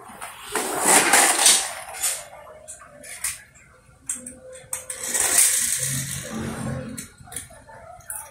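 Toy cars scraping and clattering on a concrete floor, in two noisy stretches: one about a second in and another from about five seconds in, with scattered clicks between.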